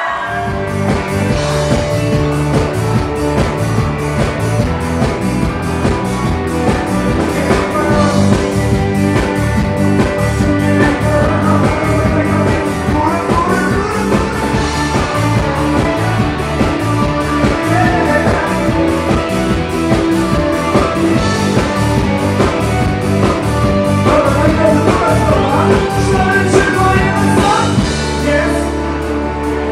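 Rock song with a singer over guitar and a steady drum beat.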